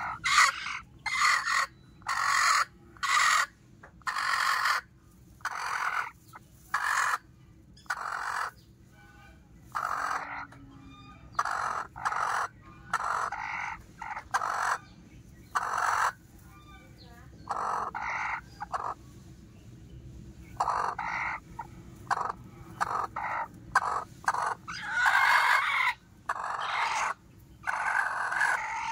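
Chickens calling: a run of short, separate clucks and squawks, about one a second, with a few longer calls near the end.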